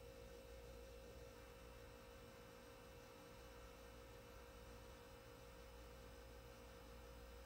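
Near silence: faint room tone with a steady, unchanging hum.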